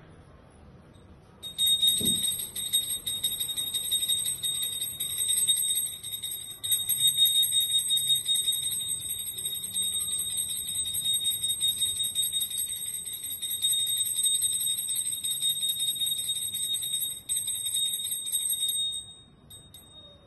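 Small brass puja hand bell rung rapidly and without pause, a steady high ringing that starts about a second and a half in and stops shortly before the end.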